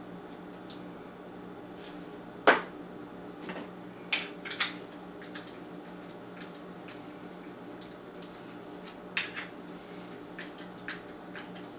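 Small metal hardware (nuts, screws and bearings) clicking and clinking as it is handled and set down on a worktable: a scattering of separate sharp clicks, the loudest about two and a half seconds in, over a low steady hum.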